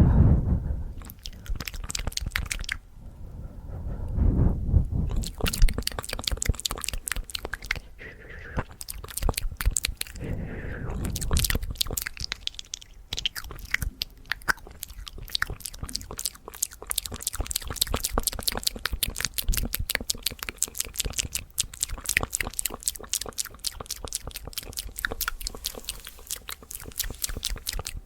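Fast ASMR mouth sounds close to the microphone: rapid wet tongue and lip clicks and smacks, many a second, with a few breathy swells in the first seconds.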